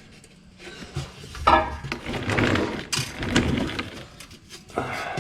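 Metal clattering and rattling as a transmission oil pan, its bolts pushed through the gasket, is handled into place. It is quiet for about the first second, then comes a busy stretch of clinks and scrapes.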